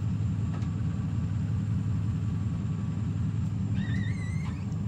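Steady low rumble of a vehicle engine idling. About four seconds in, a short warbling high-pitched call sounds over it.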